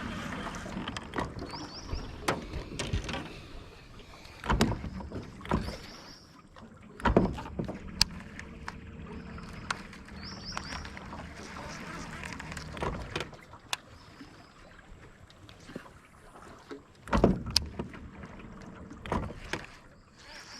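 Scattered knocks and thumps from handling fishing gear, a few louder ones about four and a half, seven and seventeen seconds in, over a faint steady outdoor background with short high chirps now and then.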